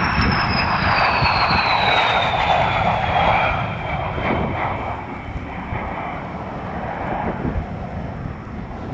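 Airplane flying past low: engine sound loudest in the first few seconds, with a high whine falling steadily in pitch as it goes by, then fading away.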